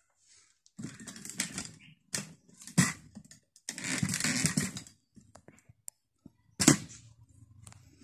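A large plastic TV back cover being handled and lifted off, scraping and rubbing in several bursts with small clicks, and one sharp knock near the end as it is set down.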